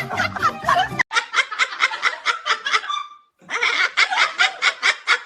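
Laughter in rapid, even 'ha-ha-ha' pulses of about six a second, in two bouts with a short break between them. Background music and a voice play for about the first second, then stop abruptly.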